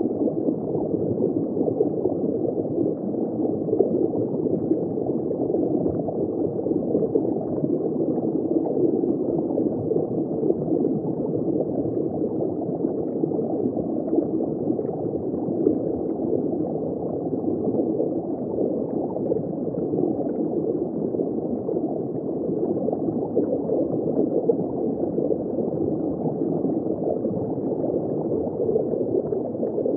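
Steady, muffled rushing and gurgling of water heard underwater through a submerged camera's housing, with no distinct events.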